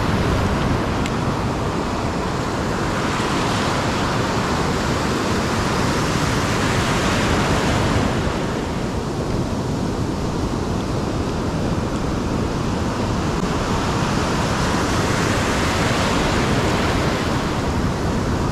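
Ocean surf breaking and washing up a sandy beach: a continuous rushing that swells and eases as the waves come in.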